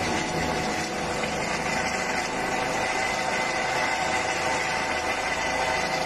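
Helicopter running close by, a steady engine noise with a high whine on top.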